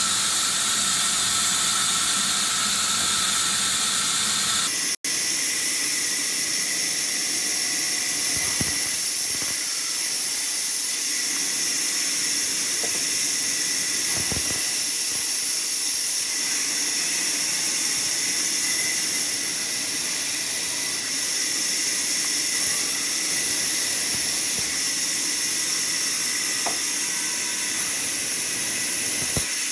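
Bandsaw blade cutting through a spruce log: a steady, high hiss of the blade in the wood, broken by a momentary dropout about five seconds in.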